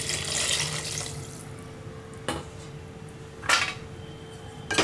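Water pouring into a cooking pot of goat trotters in masala, hissing and splashing, then tailing off about a second and a half in. Two sharp knocks follow, and a metal utensil starts clattering against the pot right at the end.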